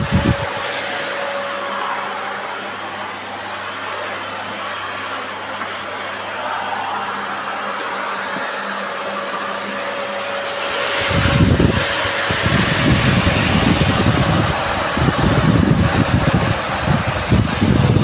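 Bosch Serie 4 canister vacuum cleaner running: a steady motor whine over a rush of air. About 11 seconds in, a louder, uneven low rumble joins.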